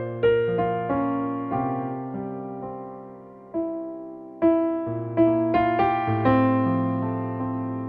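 Background music: slow, gentle piano or electric piano playing struck chords and single notes that ring and fade.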